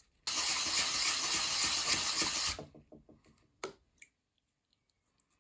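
The unglazed foot ring of a glazed stoneware bowl is rubbed on wet waterproof sandpaper to smooth away grittiness, giving a steady scratchy grinding for about two seconds. It stops abruptly and is followed by a few light knocks and a click.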